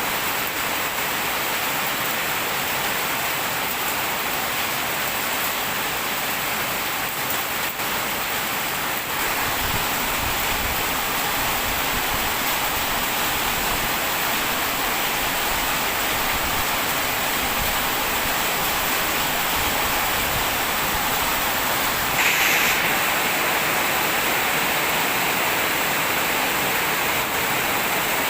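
Heavy rain pouring down steadily, a dense even hiss, with one brief louder burst about three-quarters of the way through.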